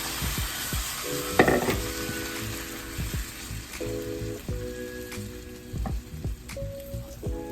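Onions, spinach and sesame seeds sizzling in a frying pan while being stirred, with scattered utensil clicks and a sharp, louder burst of sizzle about a second and a half in.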